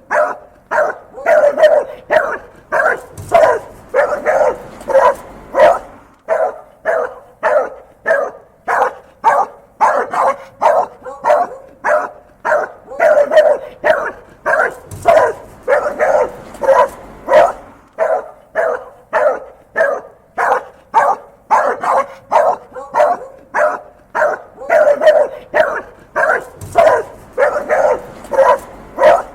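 A dog barking angrily in a rapid, unbroken run of loud barks, about two to three a second.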